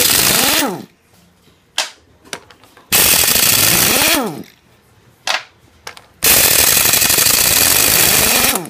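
Old Matco air impact wrench hammering on the half-inch axle flange bolts of a Chevy 14-bolt full-floating axle hub, in three bursts: a short one at the start, another about three seconds in, and a longer one of about two seconds near the end. A whine rises and falls inside the first two bursts.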